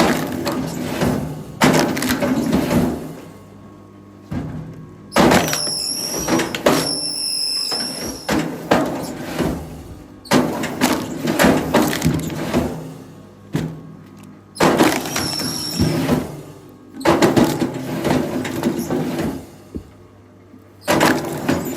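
Wood cracking and breaking in repeated bursts a few seconds long, with brief high squeals in a couple of them, over a steady low hum.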